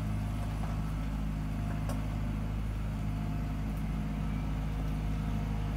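Diesel engine of the lifeboat launch tractor running steadily at low revs as it moves the lifeboat on its carriage along the slipway.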